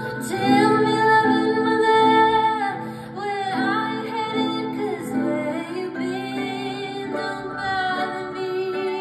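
Live music: a woman singing held, wavering notes over a plucked harp and band accompaniment.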